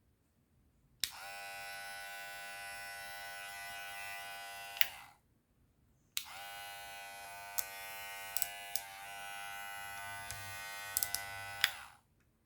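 Powertec TR-6700 cordless hair and beard clipper buzzing steadily as it is switched on about a second in, off again a few seconds later, then on once more until near the end. A few short clicks sound during the second run.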